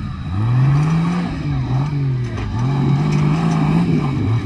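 Off-road tube-chassis buggy's engine revving up and falling back several times under load as it climbs over a dirt mound.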